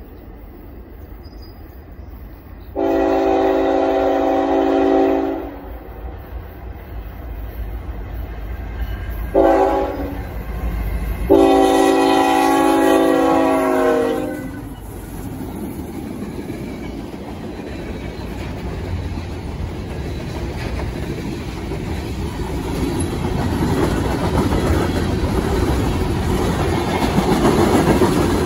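Norfolk Southern freight train's locomotive air horn sounding three multi-note blasts (long, short, long) as it approaches. The locomotives then pass close by, followed by freight cars rolling past with wheel clatter, growing louder toward the end.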